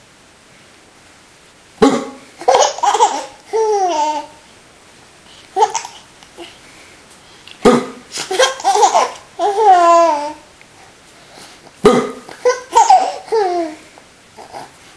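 Young child laughing in three bouts, each starting with a sudden sharp sound and running into a run of laughs that fall in pitch.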